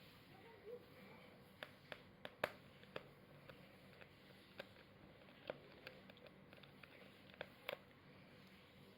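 Small sharp clicks and taps from handling a Lenovo ThinkPad X270 laptop while opening it up to replace its SSD, about a dozen scattered irregularly, the loudest about two and a half seconds in, over quiet room tone.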